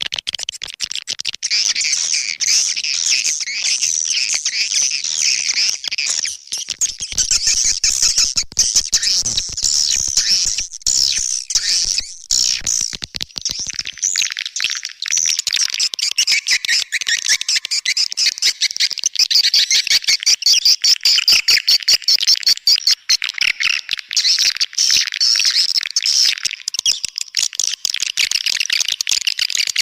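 Recorded swiftlet calls: a dense, continuous chattering twitter of many birds made of rapid clicky chirps, played as a lure call to draw swiftlets into a nesting house.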